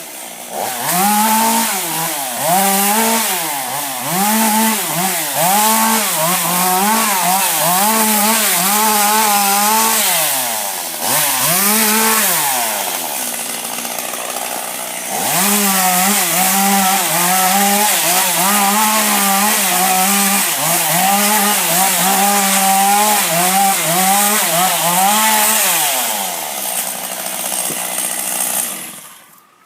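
Chainsaw cutting wood, its engine pitch dipping and recovering about once a second under load. It falls back to idle about thirteen seconds in, revs up again a couple of seconds later, and winds down near the end.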